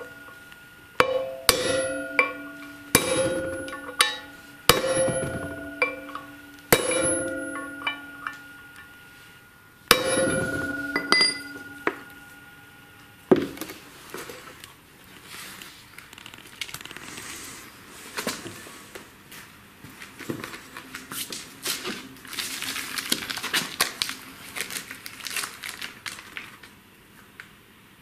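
Hammer blows on a steel socket set on the outer race of a new bearing, driving it into the hub of a Miele washing machine drum spider; each blow rings. About nine blows come in the first half, irregularly spaced, then the hammering stops and only quieter handling and rustling follows.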